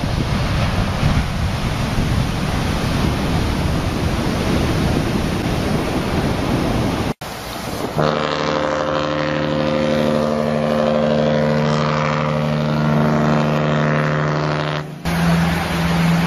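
Heavy surf breaking and washing for about seven seconds. About eight seconds in, a cruise ship's horn sounds one long steady blast lasting about seven seconds. Near the end, another steady low tone begins.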